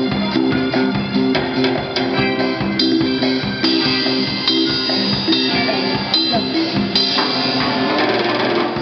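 Live pop band playing: a drum kit with guitars and a keyboard.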